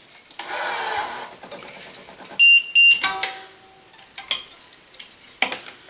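Wise 2086 electronic tension head on a racquet stringing machine: its motor runs for about a second as it pulls a string, then it gives one loud beep lasting about half a second. A few light metal clicks follow as a flying clamp is handled on the strings.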